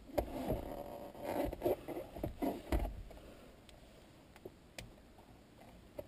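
Needle-nose pliers scraping and clicking on a plastic instrument-panel bulb socket behind a pulled-out instrument cluster. A busy run of scrapes and knocks fills the first three seconds, followed by a few single sharp ticks.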